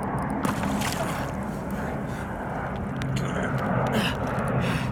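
Water sloshing and splashing around a kayak while a large muskie is handled alongside, over a steady low rumble.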